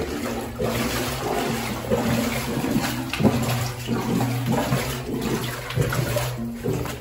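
Shallow stream water sloshing and splashing in uneven surges as someone wades through it inside a concrete culvert.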